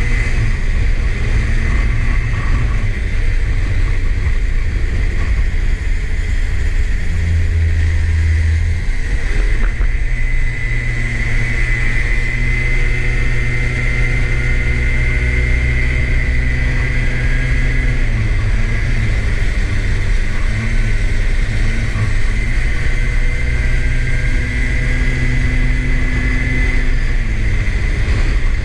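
Street go-kart engine running under way, with heavy low rumble. Its pitch rises and falls as the kart speeds up and slows, and a steady high whine runs over it.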